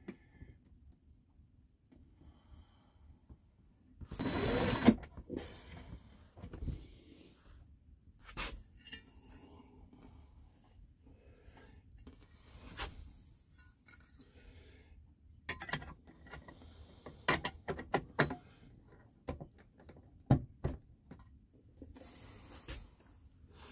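Cordless drill-driver whirring in one short burst about four seconds in while driving screws overhead. Then scattered clicks, taps and rubbing from handling screws and metal cover plates.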